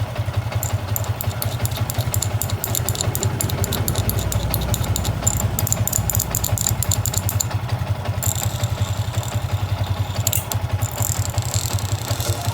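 Yamaha Sniper 150's single-cylinder four-stroke engine idling steadily, with fast light ticking over it.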